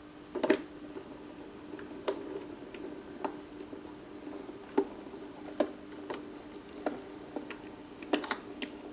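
Model railway locomotive's Halling motor bogie running with a steady hum, over irregular sharp clicks and ticks from the loco's and coaches' wheels on the 12mm gauge track. The loudest clicks come near the start and again around eight seconds in.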